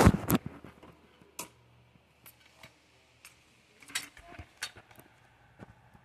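Heritage Lancaster ceiling fan running on high speed: a faint steady low motor hum with scattered irregular ticks. A cluster of loud knocks and rustles in the first half second.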